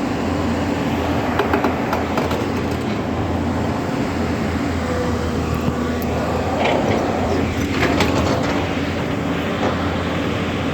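Excavator's diesel engine running steadily with a low hum, with scattered clanks and knocks over it.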